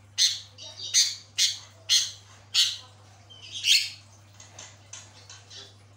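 Javan myna calling in full song: a run of six loud, harsh calls in about four seconds, followed by softer, shorter chattering notes.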